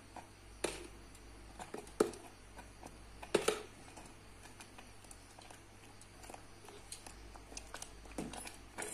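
Steel spoon clinking and tapping against a steel pot as salt is stirred into thick cracked-wheat porridge, with three sharper clinks in the first few seconds and lighter ticks after.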